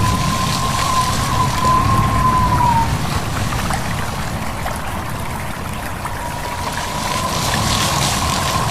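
A stream running and wind blowing through leaves: a steady rushing with a low rumble underneath. A thin, wavering whistle sounds over it, stops about three seconds in and comes back about six seconds in.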